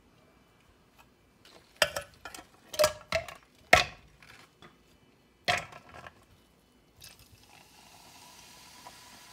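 A spoon stirring a drink in a jar-shaped pitcher, clinking against its sides in about half a dozen sharp knocks. A faint steady hiss follows near the end.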